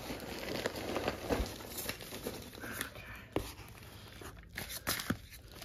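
Cardboard shipping box being handled and its lid lifted open, with rustling and crinkling of packing material and a few short, sharp taps.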